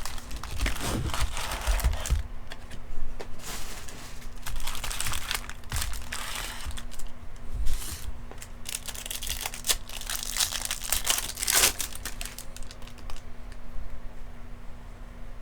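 Crinkling and tearing of a trading-card pack's foil wrapper as it is ripped open, in irregular bursts of rustling.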